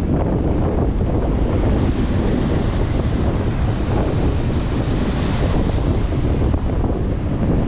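Wind buffeting the microphone over the steady wash of surf breaking, with the hiss of the water swelling about midway.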